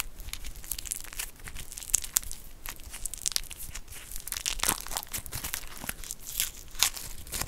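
Thin clear plastic wrap crinkling and tearing as long fingernails pick at it and peel it off a small bath bomb. It makes a dense, irregular run of small crackles with a few sharper snaps.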